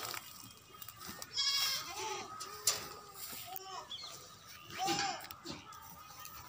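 Goats bleating: one wavering bleat about a second and a half in, then several shorter calls, with a single sharp click near the middle.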